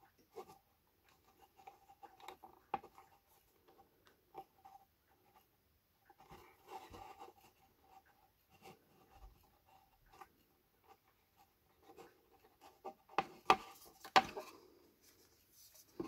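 Soft rubbing and small plastic clicks of hands handling a black plastic battery box and its wires while fitting a connector, with a few sharper clicks near the end.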